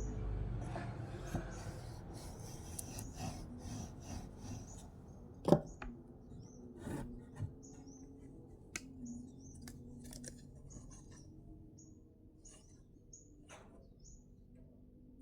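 Hand work on wood: rubbing and scraping with a few sharp knocks, the loudest about five and a half seconds in. A small bird gives short, high chirps again and again throughout.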